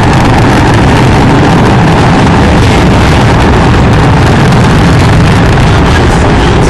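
Rocket engine roaring after launch: a loud, steady, deep rumbling roar with no break.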